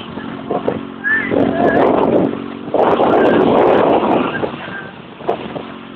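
Motor vehicle engine running at a steady drone while driving, with two louder surges of rushing noise, about a second in and again around three seconds in.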